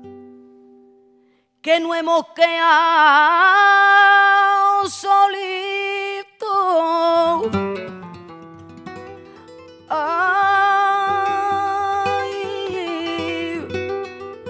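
Flamenco cante: a woman sings long, ornamented phrases whose pitch wavers and bends, accompanied by flamenco guitar. A guitar chord dies away at the start and there is a moment of near silence before the voice comes in about two seconds in; a second sung phrase begins near ten seconds over plucked guitar notes.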